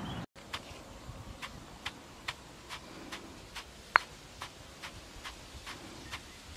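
Wooden pestle pounding rice in a stone mortar, grinding it to flour: dull knocks at about two strokes a second, with one louder, ringing knock about four seconds in.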